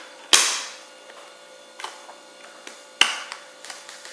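Discs pressed onto the centre hubs of a steelbook's clear plastic disc tray: two sharp snapping clicks about two and a half seconds apart, with small plastic taps between.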